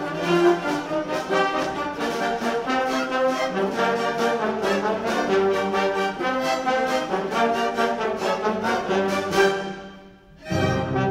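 Symphony orchestra playing, with brass to the fore over the strings in a run of repeated short chords. About ten seconds in the music breaks off briefly, then the full orchestra comes back in with a heavier low end.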